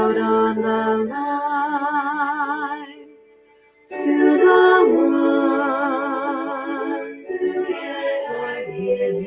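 A woman singing the harmony part of a slow children's song with vibrato, other sustained pitches sounding with her; the singing breaks off for about a second partway through, then resumes.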